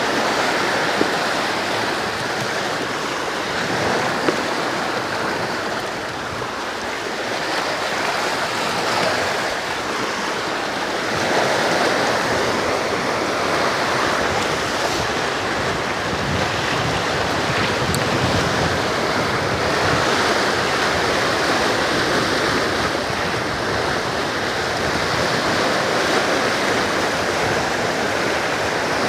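Sea waves washing against a rocky shore, a steady rushing wash that swells and eases gently, with some wind on the microphone.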